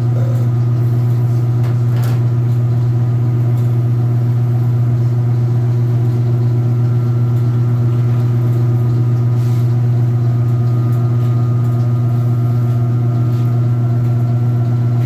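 Speed Queen top-load washing machine running its spin cycle: a loud, steady motor hum that does not change.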